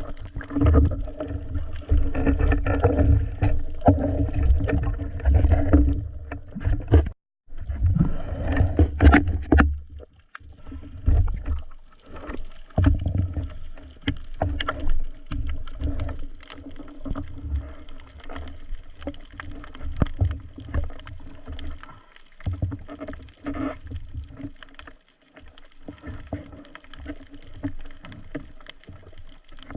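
Boat engine running with a steady low drone, mixed with water noise. It drops out briefly about seven seconds in.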